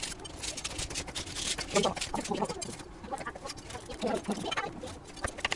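Kitchen knife chopping chocolate sponge cake into cubes, the blade tapping repeatedly on a plastic cutting board. A few short voice-like sounds come in around the middle.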